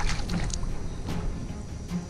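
Water splashing as a large catfish is released over the side of a boat, strongest in the first half second and then fading, under background music with a steady beat.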